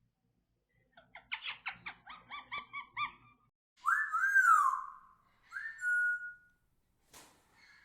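Indian ringneck parakeet calling: a quick run of short chattering notes, then a loud long whistle that rises and falls, a shorter whistle, and a brief sharp click near the end.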